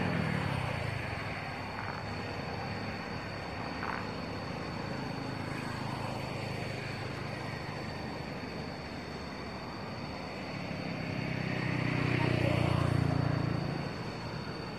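Steady background traffic noise, with a motor vehicle's engine swelling as it passes about eleven seconds in and dropping away shortly before the end. A thin, steady high whine runs underneath.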